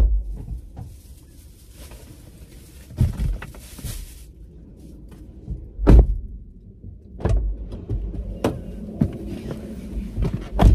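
Car door being opened and shut, with several dull thumps, the loudest about six seconds in, and rustling against the seat as someone climbs out of and back into the driver's seat.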